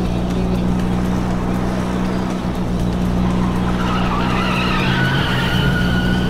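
Cartoon sound effect of a car engine running steadily, joined about three and a half seconds in by a wavering tyre squeal as a second car speeds past.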